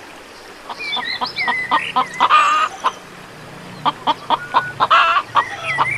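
Chicken clucking in two bouts of short, rapid clucks and calls, with a brief pause in the middle.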